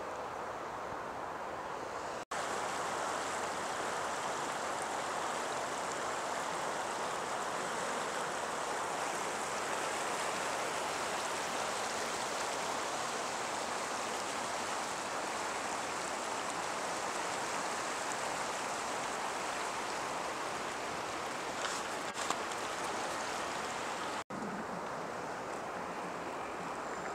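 Grand River water rushing steadily over a low weir, white water breaking across the current. The rush starts abruptly about two seconds in and cuts off abruptly a few seconds before the end, with softer wind and outdoor noise on either side.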